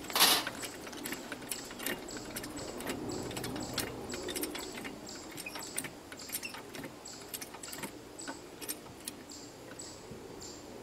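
Socket wrench working the lug nuts on a log splitter's wheel hub: light metallic clicks and clinks, becoming an even ratcheting of about two to three clicks a second in the second half. A brief loud noise comes right at the start.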